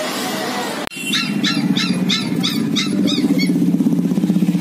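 A run of about seven short, high, rising-and-falling animal calls, roughly three a second, over a steady low hum. They begin just after the background noise cuts off sharply about a second in.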